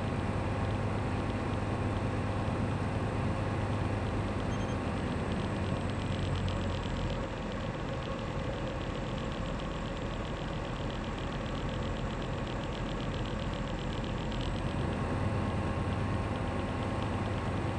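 Light aircraft's Rotax 912 flat-four engine and propeller running steadily, heard inside the cockpit, on final approach for landing. Power is eased back about seven seconds in, making the drone a little quieter, and brought up again a few seconds before the end.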